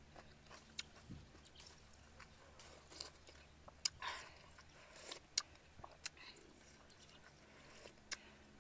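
A person eating fish soup from a spoon: quiet chewing and mouth sounds, a short slurp about four seconds in, and scattered sharp clicks.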